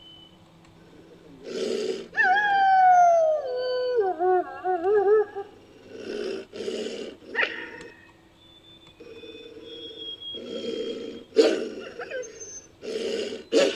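Creature sound effect built from wolf recordings: a single howl that falls in pitch and ends in a wavering quiver, followed by a run of short, rough rasping bursts.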